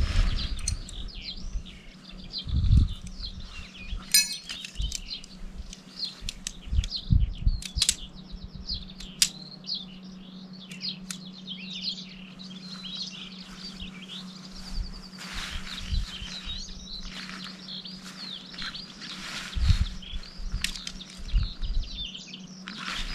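Small wild birds chirping and singing throughout, over scattered low thumps and knocks, with a short clicking rattle about four seconds in.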